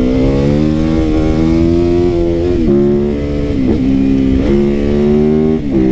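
Single-cylinder four-stroke engine of a Yamaha YZ450FX converted to a supermoto, running under way. Its note climbs and then drops sharply about four times as the throttle and revs change.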